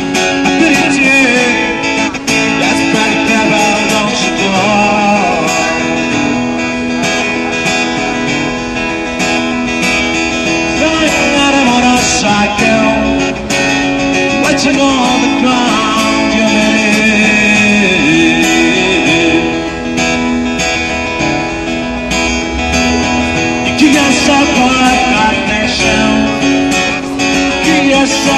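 Acoustic guitar strummed and picked in a continuous song, with a man singing over it.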